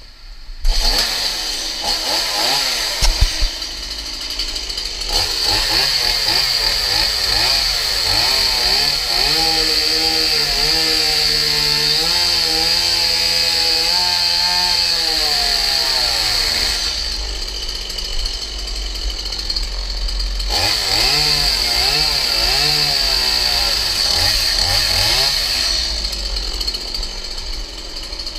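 Gas chainsaw cutting into the wooden boards and framing of a shack, its engine revving up and down in pitch, easing off briefly about two-thirds of the way in before revving again.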